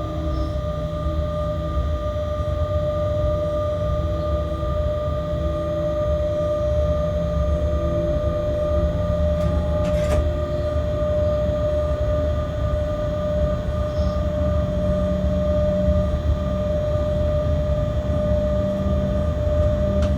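Freight locomotive heard from inside its cab: a steady low rumble with a constant high whine, and a single sharp click about halfway.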